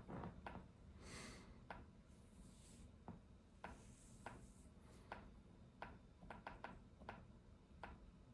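Slow, irregular typing on an iPad: scattered single key taps, roughly one or two a second, with soft rustling about a second in and again around four seconds in.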